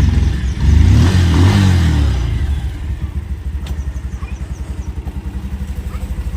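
Bajaj Pulsar 150 motorcycle's single-cylinder engine revved once, the pitch rising and falling over about two seconds, then settling into a steady idle.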